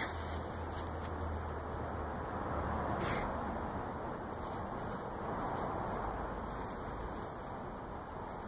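Steady, high, fast-pulsing chirr of night insects over a low outdoor hiss, with brief rustles of a beagle moving in the grass, the loudest about three seconds in.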